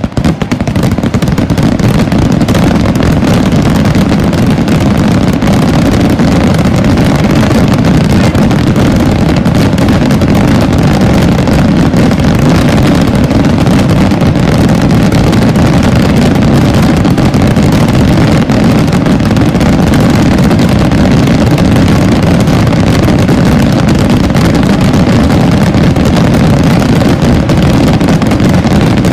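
A massed barrage of rocket firecrackers (voladores) bursting over a hillside, so many at once that the bangs merge into one continuous, very loud din. It starts suddenly and holds at full loudness without a break.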